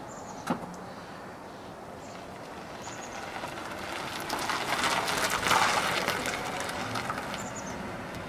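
Tyre noise of an electric-converted 1990 Mazda Miata pulling away and passing, a crackly rush that swells to a peak about five seconds in and then fades, with no engine note. A sharp click sounds about half a second in.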